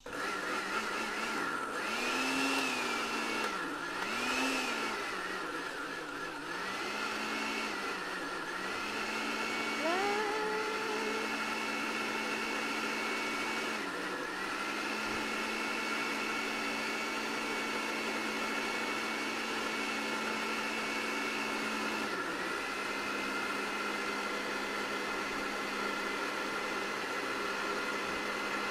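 Countertop blender motor running on a thick load of basil, garlic, pine nuts and olive oil being blended into pesto. For about the first ten seconds its speed sags and recovers every couple of seconds. After that it runs steadily, with a couple of brief dips.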